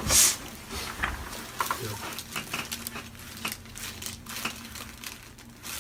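Rustling and shuffling of a patient turning over on a chiropractic treatment table, with a brief loud rustle at the start and scattered small clicks and creaks after it.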